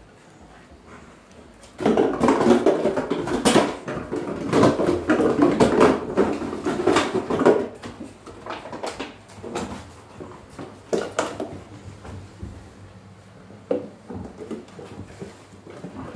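Rottweiler puppies at play: a loud spell of scuffling and rustling with many sharp clicks, lasting about six seconds, then scattered knocks and rustles.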